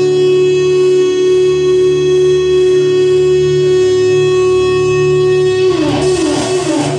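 Live band playing, led by an electric guitar holding one long sustained note, which breaks near the end into a quick run of falling notes.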